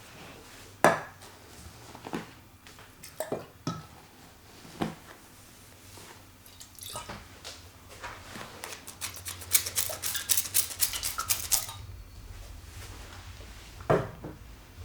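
Hands working on a head during a massage: a few sharp cracks or pops spread out, with one a little after a second in and another near the end, and a quick run of crisp taps in the middle.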